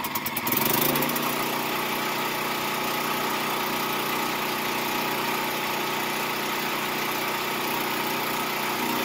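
Champion 4000-watt portable generator's single-cylinder engine running after a cold pull-start, its first run in over two years on stabilized stored fuel. About half a second in its note shifts, and it then runs steadily and kind of noisy.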